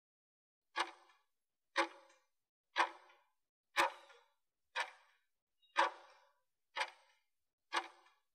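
Countdown timer's clock-tick sound effect: sharp ticks, one per second, eight in all, starting just under a second in. They mark the last seconds of a 20-second exercise interval counting down to the break.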